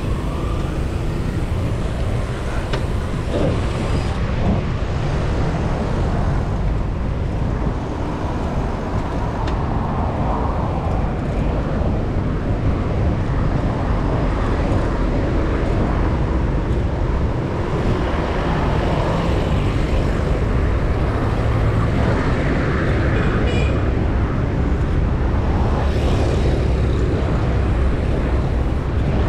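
Steady rush of wind and road noise on a bicycle-mounted action camera riding through city traffic, with cars passing alongside.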